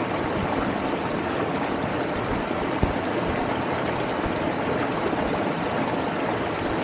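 Steady rushing of a mountain stream flowing over rocks and through a small cascade, with a single short knock near the middle.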